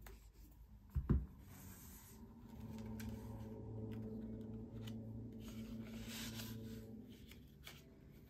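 Paper and cardstock being handled on a tabletop: a soft thump about a second in, then light rustling and rubbing as a patterned paper strip is positioned and pressed down. A faint steady hum runs underneath for several seconds in the middle.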